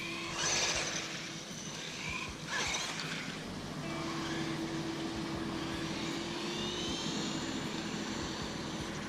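Electric motor of a 1/12-scale 2WD RC truck whining steadily as it runs on pavement. Two short louder rushes come in the first three seconds, and a higher whine rises in pitch in the second half.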